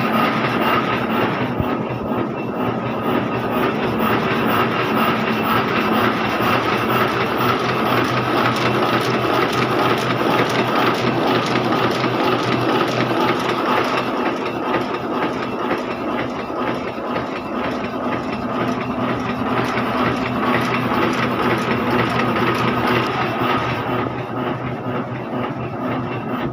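Heidelberg GTO sheet-fed offset printing press running, its feeder and cylinders making a steady, even mechanical clatter over a constant hum.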